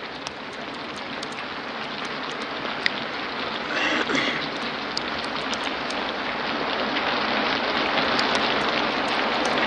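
Rain falling, a steady hiss with faint scattered drop ticks that grows gradually louder.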